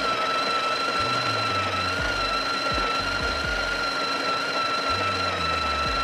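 Breville Barista Touch Impress's built-in conical burr grinder running steadily with a high, even whine as it grinds and doses coffee beans into the portafilter.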